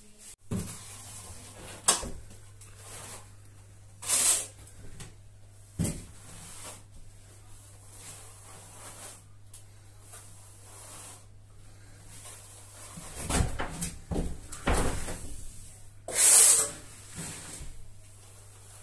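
Plastering trowel being worked over wet base-coat plaster on a wall, giving intermittent scraping strokes, two of them louder, about 4 s in and about 16 s in. A few sharp knocks and some low thumps from handling the tools come in between.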